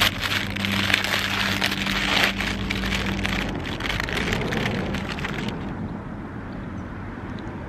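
Clear plastic sandwich packaging crinkling and crackling as hands pull it open and take a wrap out, dying down about five and a half seconds in.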